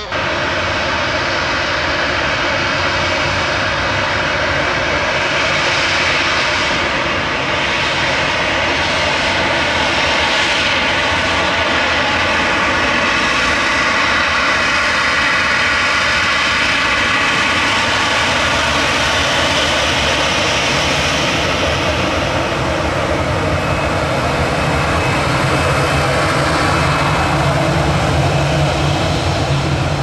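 Boeing 737-800's CFM56-7B turbofan engines running as the jet taxis close past: a steady, loud jet whine with several high tones. Near the end, as the tail swings toward the listener, a deeper exhaust rumble grows under the whine.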